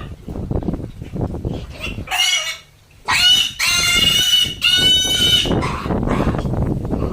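Pig squealing three times: a short squeal, then a longer one, then a third, over low scuffling noise.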